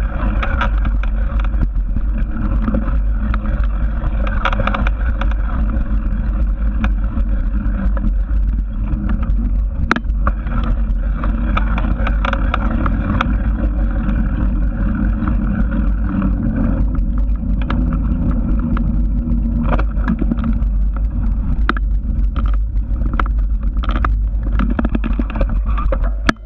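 Steady, loud wind rumble on the microphone of a GoPro action camera as it is carried along, with scattered clicks and knocks and a sharper knock about ten seconds in.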